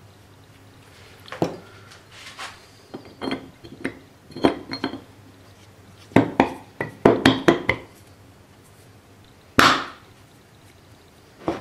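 Steel parts of a Taylor three-jaw lathe chuck clinking and knocking together as the toothed scroll gear is handled and fitted into the chuck body. The irregular metallic clinks are busiest about six to eight seconds in, followed by a single louder clunk near ten seconds and another at the end.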